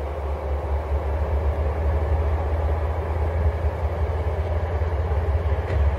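Diesel freight locomotive engine running with a steady low drone as it moves slowly at the head of a train of tank cars.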